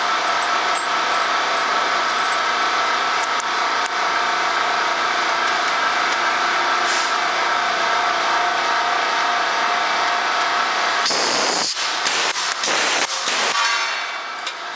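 Pneumatic rivet gun running with a steady hum and hiss of air. About eleven seconds in, the steady sound gives way to several short spurts of air.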